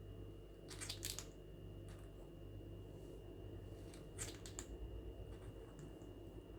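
Quaker parrot grinding its beak: two brief bouts of soft, rasping clicks of the upper and lower beak scraping together, one about a second in and another about four seconds in. Beak grinding is the sign of a relaxed, contented bird settling down.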